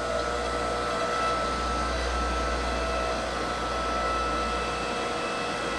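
Hydraulic log splitter's motor and pump running steadily with a whining hum, while the control lever is pulled lightly so the ram travels at its fast speed. A low rumble swells through the middle and eases near the end.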